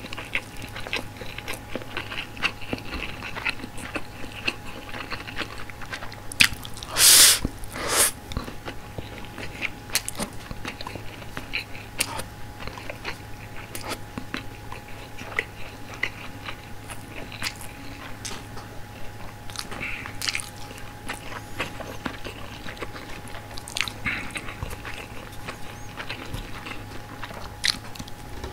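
Close-miked chewing of frankfurter sausage and white rice: wet mouth clicks and small crunchy bites throughout. There are two louder crunchy bursts about seven and eight seconds in.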